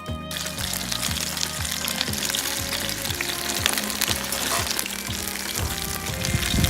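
Beef hamburger patties sizzling and spitting in a pan over a campfire, with background music with a steady beat underneath.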